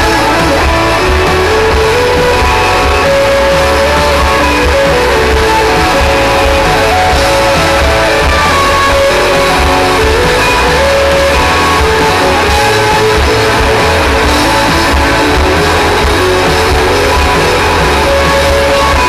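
Indie rock band playing live: a loud instrumental passage led by electric guitars over bass and drums, without vocals.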